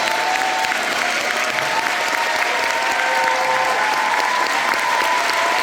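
Concert audience applauding steadily just after the song ends.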